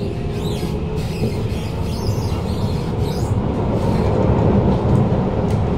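Kawasaki C151 metro car (PMSM-traction variant) running along the line, heard from inside the car: a steady low rumble of wheels on rail that grows slowly louder, with a few brief high sliding whines near the start and about three seconds in.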